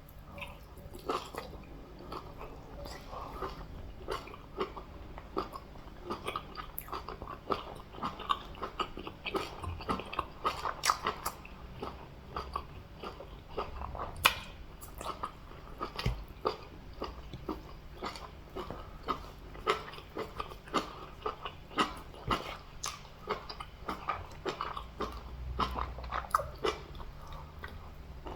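Close-miked eating: wet chewing and smacking of fufu with catfish and meat in soup, with frequent short clicky mouth sounds and occasional crunchy bites.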